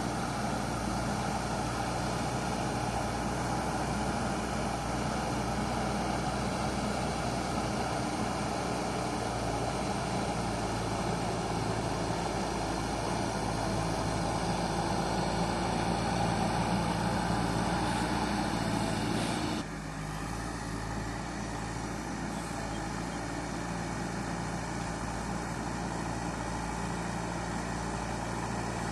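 JCB backhoe loader's diesel engine running under steady work. It gets a little louder before dropping suddenly about two-thirds of the way through, then runs on steadily at the lower level.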